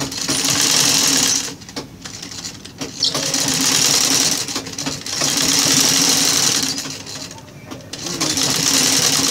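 Old black sewing machine stitching fabric ruffles onto a sack-cloth rug backing, in several runs of a second or two with short pauses between as the fabric is repositioned.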